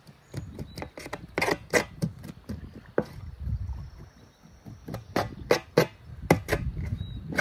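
Knife cutting and scraping along a char fillet to take off the rib bones: a run of short, sharp scraping strokes, irregular, a few a second.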